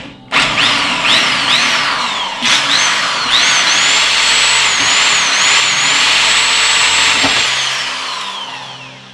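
Power drill drilling out pop rivets in a PC case's back panel, the motor's pitch sliding up and down as it bites. It stops briefly right at the start and again about two and a half seconds in, then winds down near the end.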